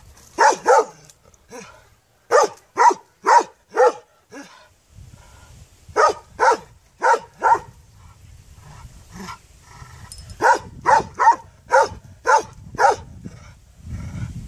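A large chained dog barking in bursts: two barks at the start, then runs of four, four and six, about two barks a second, with short pauses between the runs.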